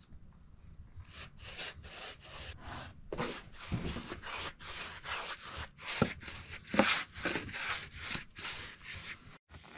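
A paintbrush scrubbing back and forth on a debarked log wall, a rhythmic scratchy rasp of about three strokes a second that starts about a second in.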